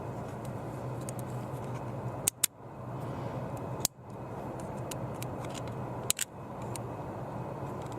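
Glove box latch mechanism clicking sharply about three times as its release lever is pulled down and let go, the last click doubled, over a steady background hum.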